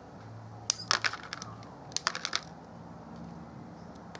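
Wire cutters snipping cables off a circuit board: two clusters of sharp clicks, about a second in and again about two seconds in.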